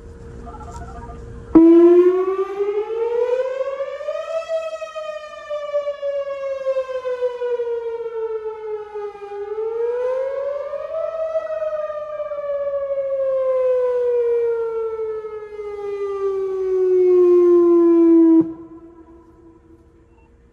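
Outdoor tornado warning siren sounding a wail, starting suddenly about a second and a half in. One loud tone sweeps up, down, up again and then slowly down, and cuts off suddenly a couple of seconds before the end.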